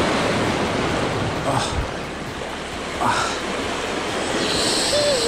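Ocean surf washing against the shore, a steady rush of water noise. Near the end a short wavering tone starts up.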